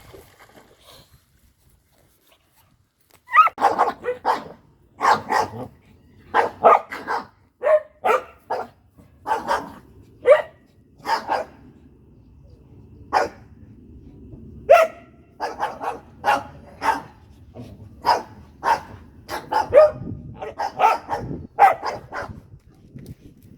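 Dogs barking during rough play: a long run of sharp barks, one or two a second, starting about three seconds in, with low growling underneath.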